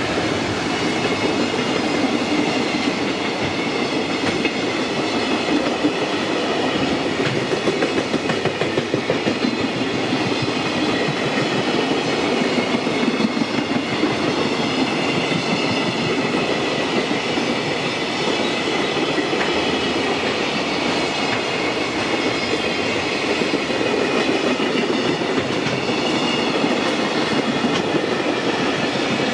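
A JR Freight train's wagons rolling past close by: a loud, steady rumble, with the wheels clattering in quick rhythmic runs as they cross the rail joints.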